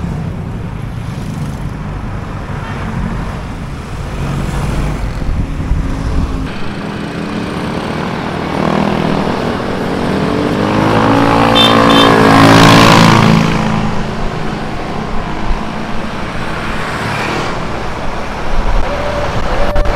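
Road traffic noise with a motor vehicle passing close by: its engine sound builds, peaks about twelve to thirteen seconds in, then fades away.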